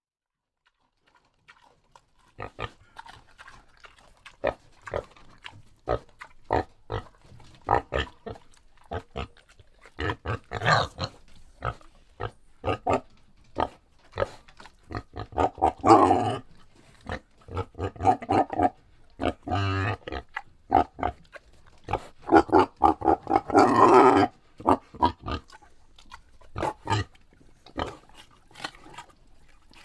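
Wild boar eating and grunting: a run of short crunching chewing sounds starting about two seconds in, broken by bouts of louder grunts, the loudest near the middle and again about four-fifths through.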